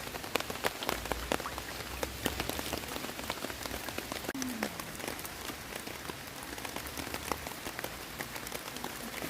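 Steady rain falling, with many individual drops pattering and ticking on surfaces.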